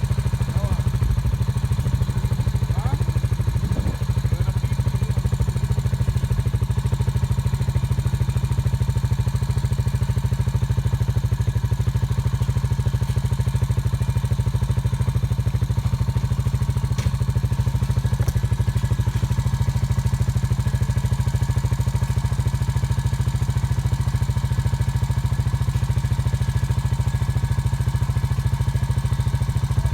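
Off-road vehicle engine running at a steady, even speed, with no revving.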